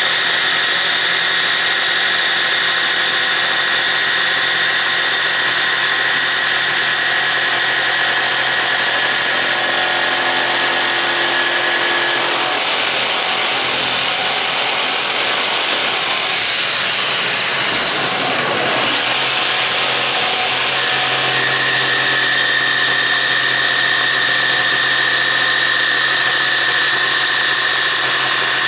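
Festool Trion jigsaw fitted with a bi-metal blade cutting steadily through a pine drawer front. Midway its whine wavers and dips in pitch, then settles back to a steady run.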